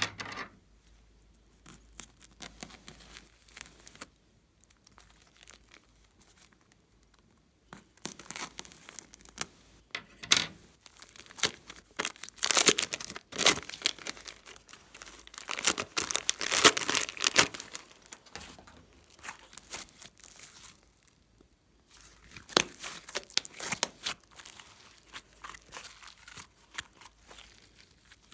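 Glossy slime being worked by hand, giving dense sticky clicks and pops in bouts that are loudest in the middle stretch.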